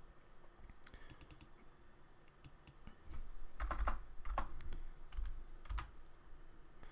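Keystrokes on a computer keyboard: a few scattered taps at first, then a quicker run of typing from about halfway through, with dull low thumps among the keys.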